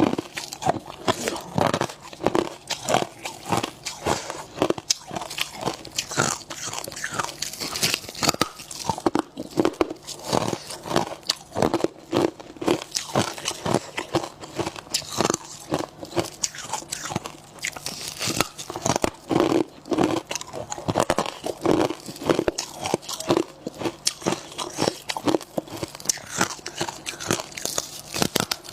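Close-up chewing of freezer frost and ice: dense, irregular crunches, several a second, continuing without a break.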